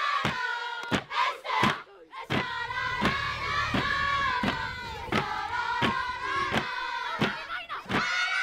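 Many voices singing together over a steady beat of sharp percussive strikes, about one and a half a second, with a short break about two seconds in.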